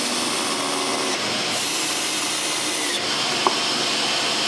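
A power tool running steadily, with a brief click about three and a half seconds in.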